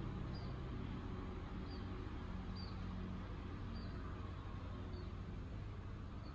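Outdoor ambience: a steady low hum underneath, with a small bird giving a short high chirp about once a second.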